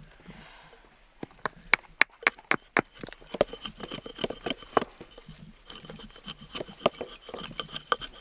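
Hatchet blade cutting and shaving a thick wooden branch on a chopping block to carve a wooden mallet: a run of sharp wooden knocks and chops, sparse at first and coming thick and fast from about three seconds in.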